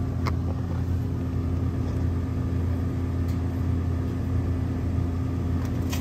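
Steady low mechanical hum and rumble of running machinery, with a faint click shortly after the start.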